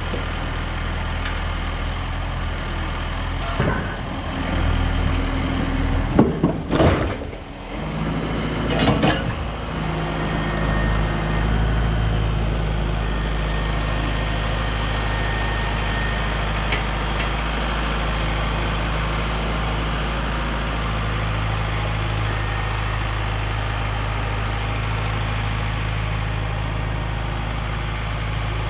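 Diesel engine running steadily as heavy equipment handles a big log, with a few loud clunks and bangs between about four and nine seconds in.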